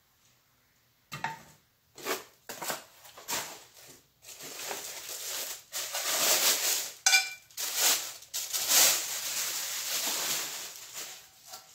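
Plastic protective wrapping crinkling and rustling as it is pulled off a cookware pot. It starts with separate sharp rustles about a second in and becomes a dense, continuous crackle from about four seconds.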